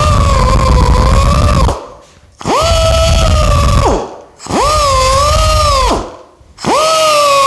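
Handheld air die grinder with a 3M Roloc disc whining in four short bursts, each spinning up fast, holding a steady high pitch for about a second and a half and then stopping, about one every two seconds. Each burst presses one swirl into the aluminum sheet while engine turning it.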